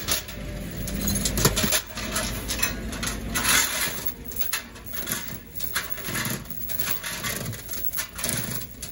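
Heavy steel tow chain being hauled out of a steel box on a truck bed, rattling and scraping in irregular clinks.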